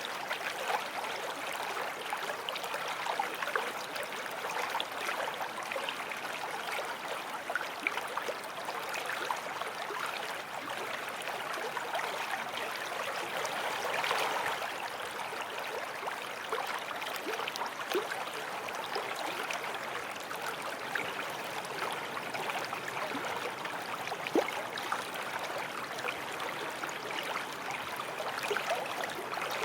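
Small forest stream flowing, a steady rush of water over stones with bubbling and little splashes throughout, one sharper splash a little past the middle.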